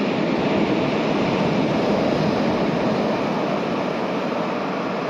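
Surf of a rough sea breaking on the shore, a steady rush of waves.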